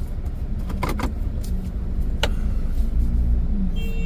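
Car driving on a city street, heard from inside the cabin as a steady low road and engine rumble with a few sharp knocks. A short horn honk sounds near the end.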